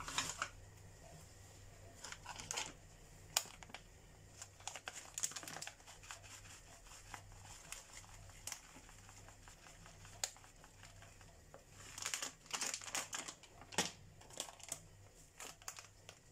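A plastic packet of grated parmesan crinkling in short bursts as the cheese is shaken out, with a few sharp clicks between.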